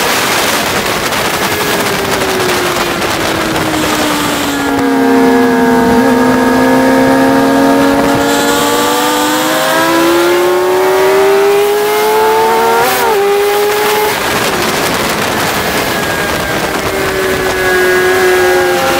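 Sport motorcycle engine at speed on a racetrack, with wind rush. The revs fall as the bike slows into a corner, then climb steadily under acceleration. They cut back sharply about two-thirds of the way through and rise again near the end.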